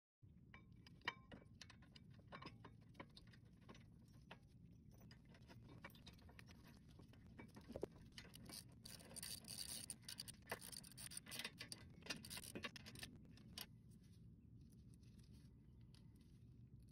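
Faint, irregular clicks and light scraping of tools and metal parts being handled at a car's front brake caliper, over a low steady hum. The clicks come thicker about eight to thirteen seconds in.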